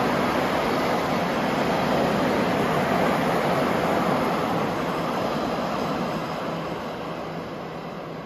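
Freight train of enclosed car-carrier wagons rolling past, a steady rumble of wheels on rail that fades over the last few seconds as the train draws away.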